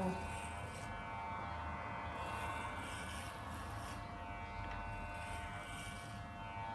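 Electric hair clippers buzzing steadily as they shave hair down close to the scalp.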